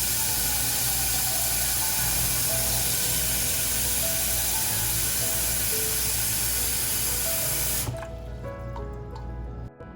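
Kitchen tap running into a pot of eggs, a steady rush of water that cuts off suddenly about eight seconds in. Background music plays throughout.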